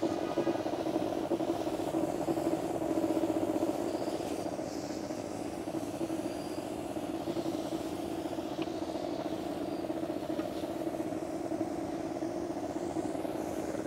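Motorized pesticide sprayer running steadily while spraying plants, a continuous even hum with no breaks.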